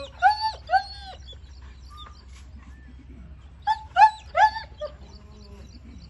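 A dog whining in short, high-pitched, arching yelps: two or three within the first second, then a run of four more about four seconds in.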